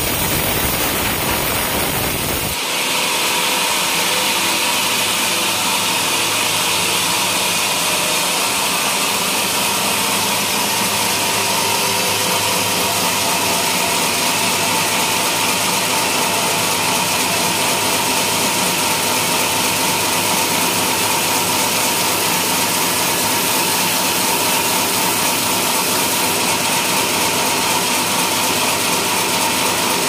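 Band sawmill cutting lengthwise through a coconut trunk. About two and a half seconds in the sound changes, losing its low rumble, and the saw then runs on as a steady hiss with a constant whine.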